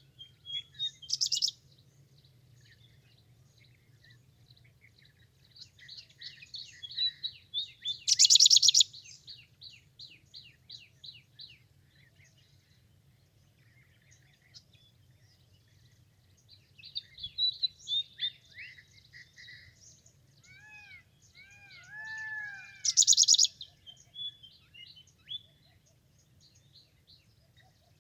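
Birds singing and calling in quick runs of short chirps, with a loud harsh rattling burst three times: about a second in, around eight seconds in and around twenty-three seconds in. Arched whistled notes sound in the later part, over a faint steady low hum.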